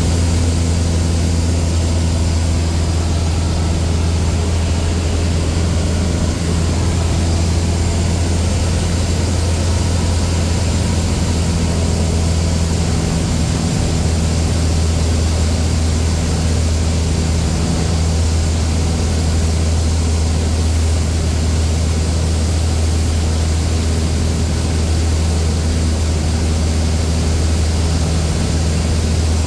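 Cessna A152 Aerobat's four-cylinder Lycoming O-235 engine and propeller running at a steady power setting in flight, a constant low drone heard from inside the cockpit.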